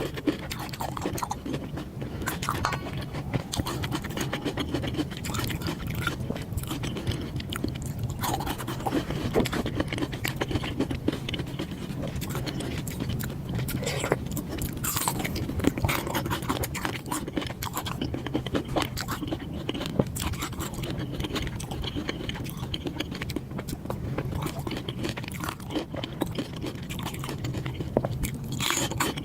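Close-miked chewing and biting of food: dense, irregular wet mouth clicks and crunches.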